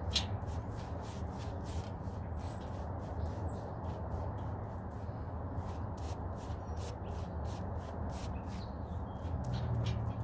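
Foam paint brush dabbing and stroking white paint onto a wooden fence board: quick, repeated soft strokes, several a second, over a steady low rumble.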